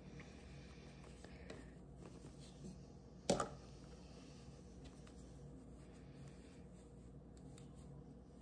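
Quiet handling of a crocheted acrylic-yarn panel on a tabletop, with a few faint ticks and one sharp knock a little over three seconds in.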